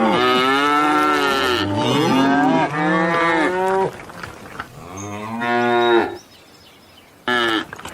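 Cows mooing: long, overlapping moos for about the first four seconds, another moo growing louder around the middle, then a short moo near the end.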